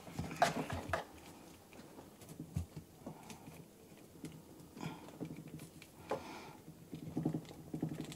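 Faint, scattered clicks and rustles of hands handling a plastic action figure, pressing a small gun into the figure's tight hand.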